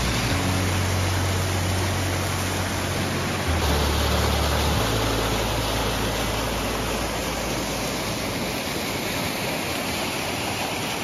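Steady rush of water, an even roar with no breaks. Under it, a low hum steps in pitch a few times during the first five seconds.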